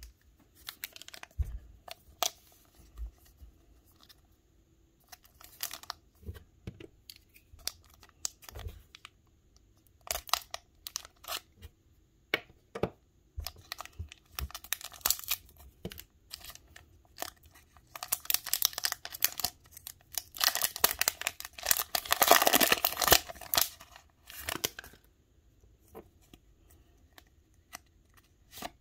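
Foil wrapper of a Pokémon trading-card booster pack crinkling in the hands, then torn open with a long, loud ripping stretch about two-thirds of the way through, followed by quieter handling crackles as the cards come out.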